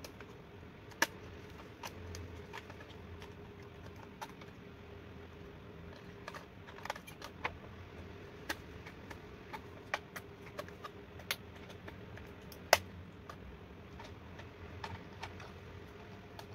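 Scattered plastic clicks and taps from handling a toy bubble camera while fitting batteries into it, with a sharper click about a second in and the loudest one near thirteen seconds in.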